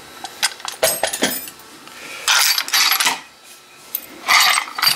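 Keys on a key ring clinking against a metal CISA rim cylinder as it is picked up and handled. A few sharp metallic clicks come first, then two longer jangles.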